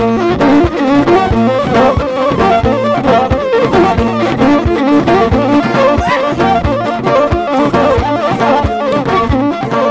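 Live Ethiopian traditional band playing an instrumental: a krar lyre and hand drums, with a wavering melody over a steady held low tone and drum strokes about twice a second.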